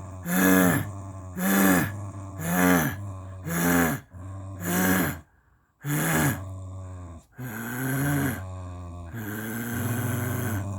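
American Cocker Spaniel grumbling: a series of short groaning growls about one a second, each falling in pitch, then longer drawn-out grumbles in the second half, the sound of a dog complaining.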